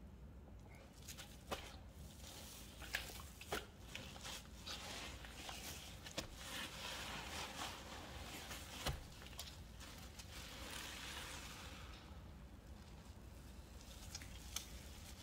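Soapy paste of baking soda and soap flakes being squeezed and rinsed in water: soft wet squishing with scattered small clicks and crackles, and a faint hiss through the middle for several seconds.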